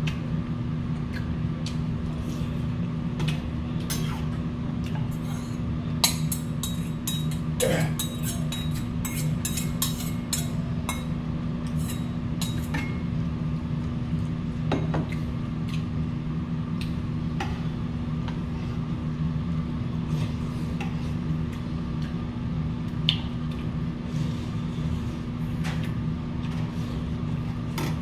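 Spoon and chopsticks clinking and scraping against brass bowls while a man eats beef bone soup with rice, with short clicks scattered throughout. A steady low hum runs underneath.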